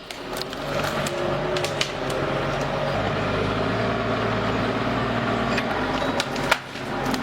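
Engine of heavy wood-handling machinery running steadily, its note shifting about three seconds in, with scattered knocks and clicks of wood and metal.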